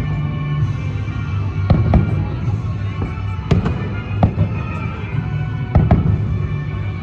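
A fireworks display: several sharp bangs at irregular intervals, about seven in all, two close pairs among them, over loud show music.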